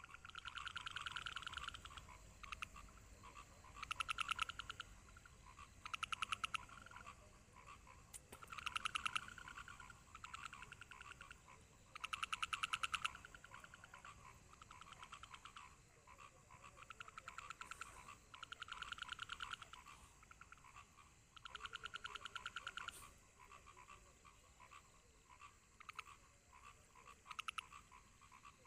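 Frogs calling: short pulsed trills about a second long, repeating every one to two seconds, some louder and some fainter.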